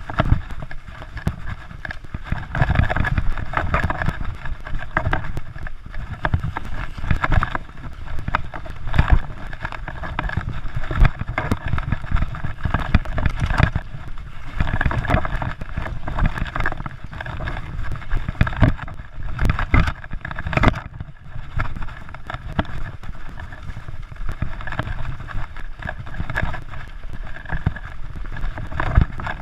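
A mountain bike ridden fast over a bumpy dirt trail: wind buffeting the microphone, with frequent uneven knocks and rattles from the bike jolting over the ground.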